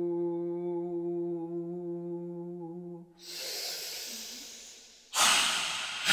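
A woman's voice holding one low, steady tone for about three seconds. It breaks into a long hissing breath, and about five seconds in comes a loud, forceful breath through a wide-open mouth, the loudest sound.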